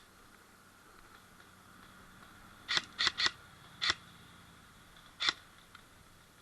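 Airsoft gun firing single shots: five sharp snapping clicks, three in quick succession about three seconds in, then one shortly after and one a little past five seconds.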